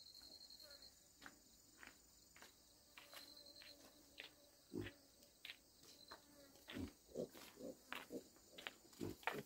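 Faint footsteps of two people walking on bare earth, growing louder and closer together in the last few seconds as they approach. A thin, high insect chirp comes and goes in the first few seconds.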